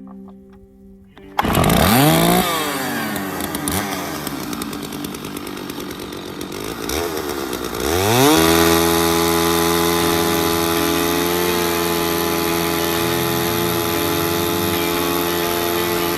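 Two-stroke chainsaw starting about a second and a half in, revving up and falling back. About eight seconds in it revs up again and holds a steady high pitch at full throttle.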